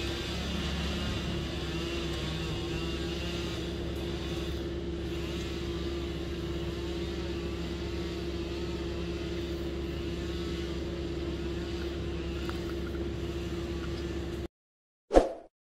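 Towable wood chipper running steadily with a low engine hum and a held mid-pitched tone. The sound cuts off abruptly near the end, followed by a single loud ding.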